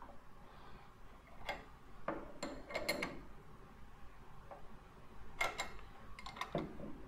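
Two open-end wrenches clicking against a steel air coupler plug and each other while it is tightened into its threads in short squeezes, the wrench lifted off and reset between them: about ten light, scattered metal clicks.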